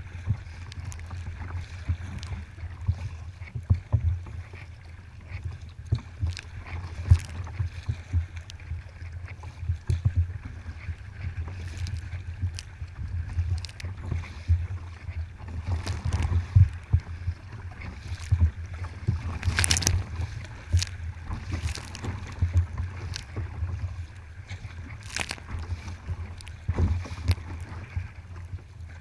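Kayak on open water: paddle strokes and water splashing and slapping against the hull, with scattered sharp splashes and knocks over a steady low rumble.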